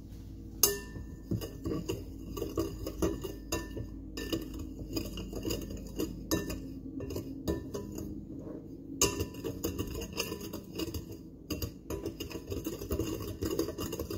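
Steel coil of a Danish dough whisk clinking and scraping against a mixing bowl as dry flour, sugar and baking powder are whisked together. It comes as quick, irregular strokes that start about half a second in and pause briefly twice.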